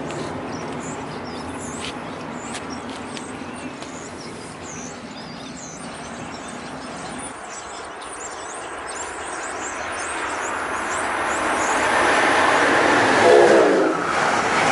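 An NJ Transit electric train with multilevel coaches running away down the line, its rumble fading. Then an Amtrak train of stainless-steel Amfleet coaches approaches at speed and passes close by, building to a loud rush of wheels on rail, with a whine that drops in pitch as the head end goes by near the end.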